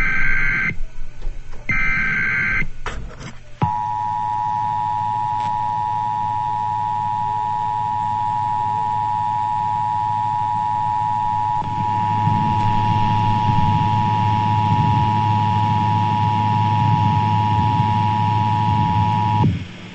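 Emergency Alert System broadcast: two short warbling data bursts of the EAS header, then the two-tone EAS attention signal, a steady pair of tones held for about sixteen seconds. A low hum sits beneath the tones and grows louder about halfway through the tone.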